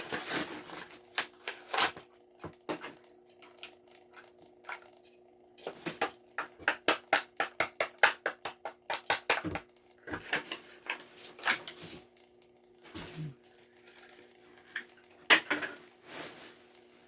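Plastic blister packaging and card backing of a Hot Wheels car crackling and clicking as it is pried and torn open by hand, with scattered snaps and a quick run of clicks about six seconds in.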